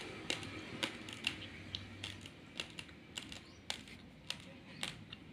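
Raw basmati rice grains being crunched between the teeth: sharp, irregular cracks, about three a second.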